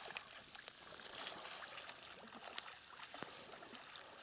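Faint splashing and lapping of water from a small boat being rowed, with a few soft clicks.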